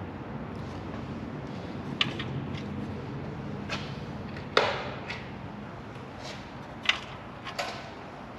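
Scattered sharp metallic clicks and knocks of hand tools working at the exhaust's mounting bolts, about five in all with the loudest about halfway, over a steady low hum.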